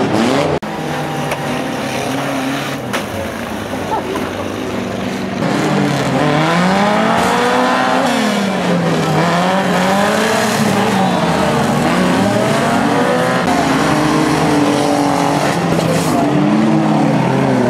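Banger race cars' engines revving up and down as wrecked cars push against each other, with a sharp crash bang at the start and another about three seconds in.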